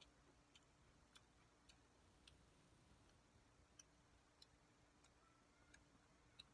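Near silence: room tone with a faint steady hum and soft, scattered clicks roughly every half second to a second.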